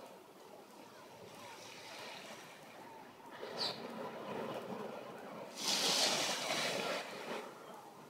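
Small waves lapping on a sandy beach, with one larger wave washing up the sand from about five and a half to seven and a half seconds in, the loudest moment.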